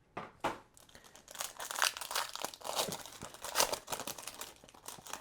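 Trading card packaging crinkling and tearing as it is ripped open by hand, a run of irregular crackly rustles.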